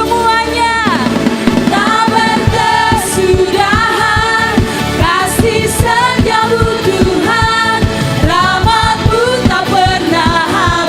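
Live contemporary worship music: singers carrying a praise song over a full band with a steady beat.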